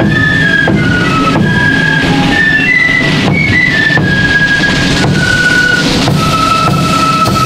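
Marching flute band playing a tune: flutes carry the melody over the beat of a bass drum and side drums, with a long held note near the end.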